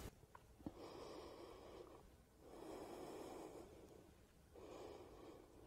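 Faint breathing from a person holding an exercise: three slow breaths about two seconds apart, with a couple of tiny clicks near the start.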